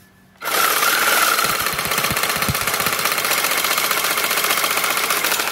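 Cordless reciprocating saw switched on about half a second in and running at full speed, its blade shaking a full spray paint can duct-taped to it: a loud, fast, even mechanical rattle from the motor and the vibrating can.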